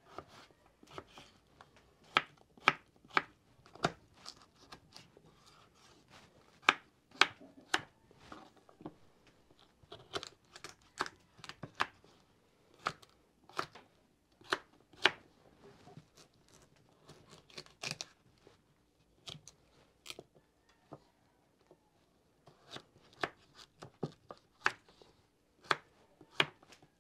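Kitchen knife dicing raw potatoes and then carrots on a wooden cutting board: irregular sharp knocks of the blade on the board, a couple a second, with a few short pauses.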